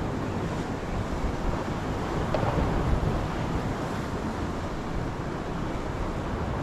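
Sea swell washing and breaking over a rocky shore ledge, mixed with wind buffeting the microphone.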